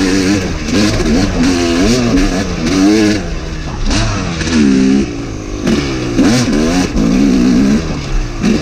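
Two-stroke Yamaha YZ250 dirt bike engine being ridden hard, its pitch rising and falling over and over as the throttle is opened and closed through the gears.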